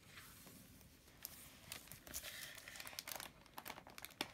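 Pages of a picture book being turned by hand: faint paper rustling and crinkling with small ticks, busiest in the middle.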